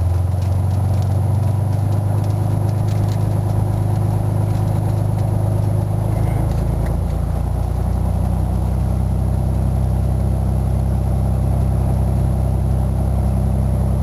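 Cessna 182's piston engine running at low taxi power, a steady low drone heard inside the cabin. Its note shifts slightly about halfway through.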